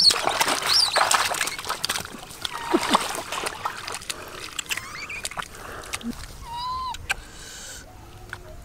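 Water splashing and sloshing in rapid bursts for the first few seconds, then settling, with a few short chirping animal calls over the quieter stretch.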